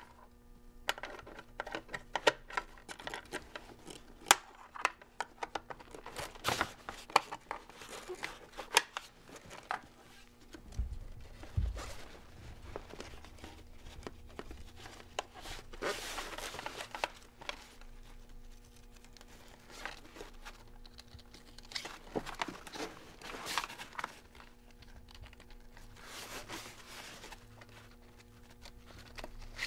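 Fabric and nylon webbing straps of a folding-kayak seat being handled: rustling, crinkling and scattered small clicks of buckles and straps being pulled through slots in a plywood seat base, with a low bump about eleven seconds in.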